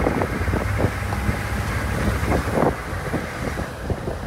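A vehicle running as it drives along, with wind buffeting the microphone and scattered light rattles and knocks.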